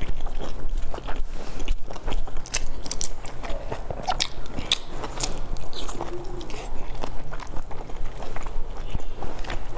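Close-miked eating: biting into a large soft stuffed bun and chewing it, with many small wet mouth clicks and smacks.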